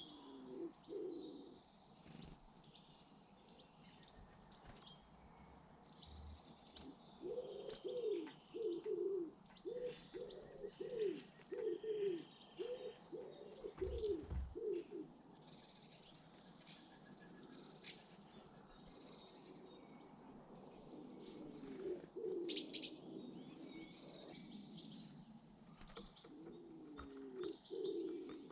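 A pigeon cooing: a run of about ten low coos in the middle, with shorter coo phrases near the start and near the end. Small garden birds chirp and twitter in high notes throughout.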